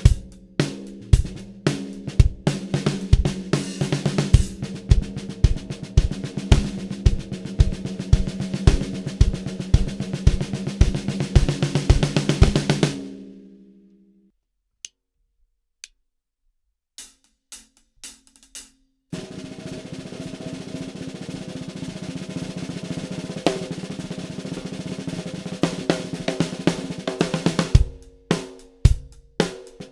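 Ludwig Supralite 14"x5.5" beaded steel snare drum played in a drum kit: a steady beat with bass drum under busy snare playing, which rings out and stops about halfway through. After a few single hits, fast continuous snare playing follows, and the beat comes back near the end.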